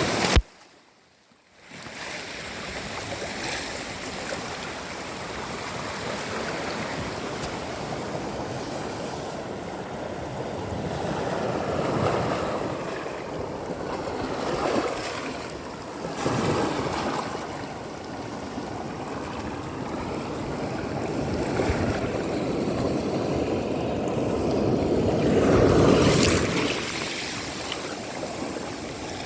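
Sea waves washing onto a sandy beach, a steady wash that swells and ebbs several times, loudest near the end. About a second in, the sound drops out briefly to near silence.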